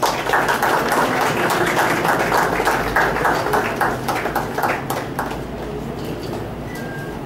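Audience applauding: a dense patter of many hands clapping that starts suddenly and dies away after about five seconds.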